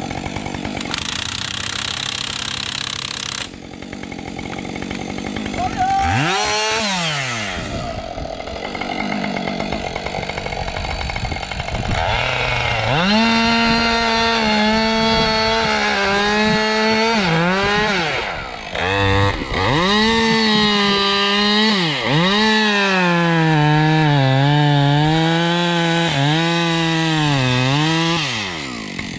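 Two-stroke chainsaw revved up and cutting into a spruce trunk. The engine is held at high revs, then its pitch sags and wavers under the load of the cut, with a few brief drops when the throttle is let off.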